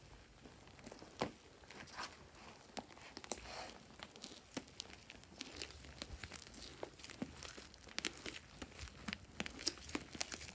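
Purple fluffy slime being kneaded and stretched by hand, giving many small, sharp, sticky crackles at irregular times.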